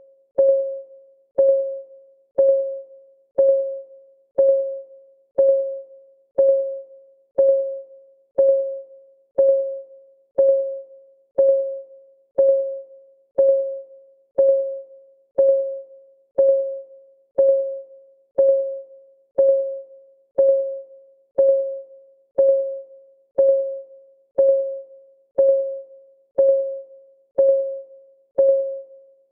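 Countdown timer's clock-ticking sound, one tick per second, each a sharp click with a short ringing tone that fades before the next.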